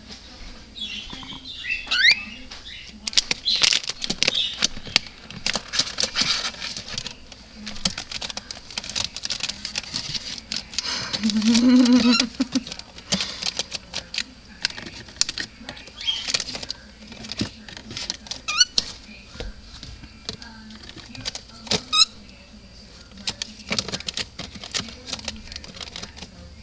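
Cockatiel scrabbling about inside a cupboard, its claws and beak making many irregular taps and scratches, with a few short rising chirps. About halfway through there is a louder low hum-like sound lasting a second or two.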